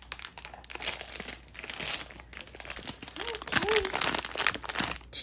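Crinkly plastic blind-box pouch being crumpled and pulled open by hand: a dense run of crackles, loudest in the second half.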